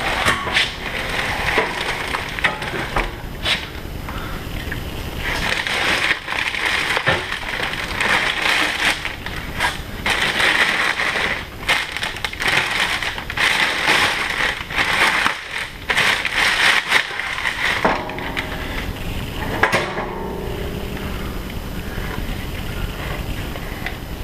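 Clear plastic packing wrap crinkling and rustling as it is handled and pulled, loudest through the middle and easing off near the end, with scattered knocks and clicks from handling metal parts.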